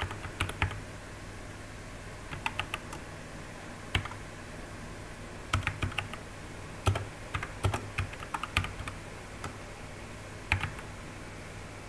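Typing on a computer keyboard: irregular runs of key clicks with short pauses between them, over a faint steady low hum.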